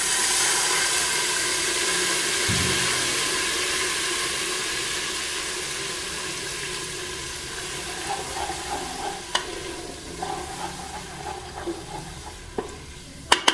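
Water poured into hot oil with dark-fried onions and whole spices in a pressure cooker, sizzling loudly at once and slowly dying down as the oil and water settle. Near the end a wooden spoon stirs the mixture, with a few sharp knocks against the pot.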